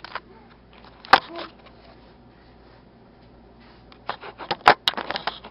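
Handling noise from a handheld camera being jostled: one sharp knock about a second in, then a quick run of clicks, knocks and rubbing near the end.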